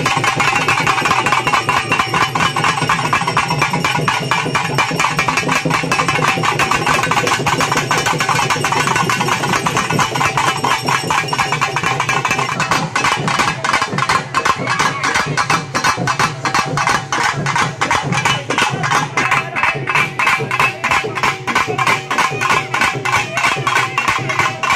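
Traditional Tamil festival music: fast, steady drumming with a melody line over it.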